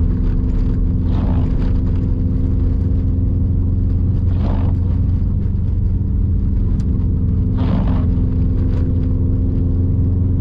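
Subaru WRX STI's turbocharged flat-four engine running steadily at an even cruise, with a low, unchanging drone. A soft swish recurs about every three seconds.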